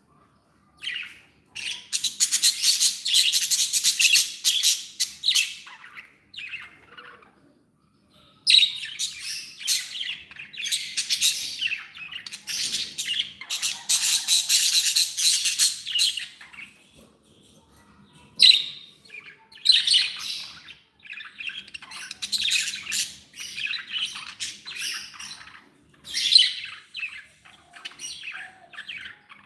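Budgerigars chattering and chirping in bouts of rapid warbling, with short pauses between the bouts.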